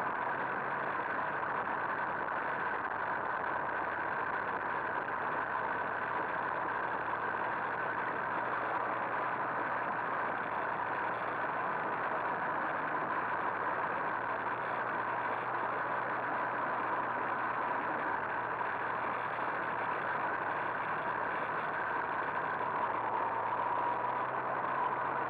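Two-stroke moped engine running at a steady cruising speed, heard from on board while riding. It makes an even, high-pitched drone that holds one pitch throughout, with no shifts or revving.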